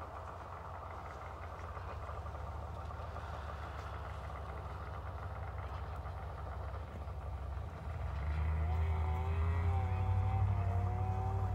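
Snowmobile engines running at idle. About eight seconds in the sound gets louder and an engine's pitch wavers up and down as the throttle is worked.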